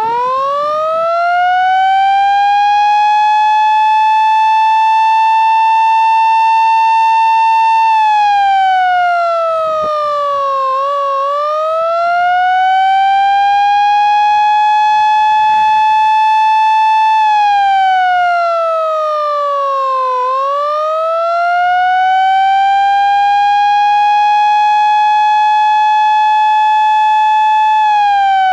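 Vintage CAM mechanical fire-truck siren on a 24-volt motor, loud throughout. It winds up to a steady wail, holds it for several seconds, then freewheels down in pitch before being brought back up. This happens three times, the last wind-down starting near the end.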